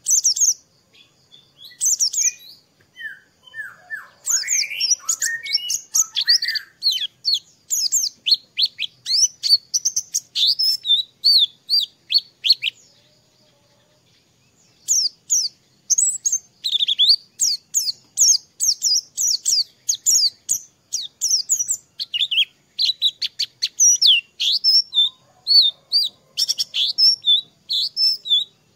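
White-eye (pleci) singing a fast, high-pitched twittering song of rapid chirped notes, broken by a pause of about two seconds midway before it starts again.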